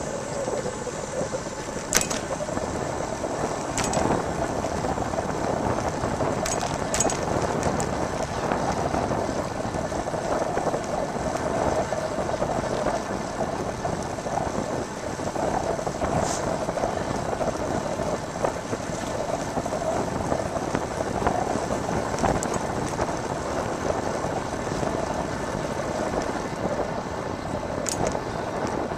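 Riding a bicycle along a paved path: a steady rush of wind and rolling tyre noise, broken by a few sharp clicks.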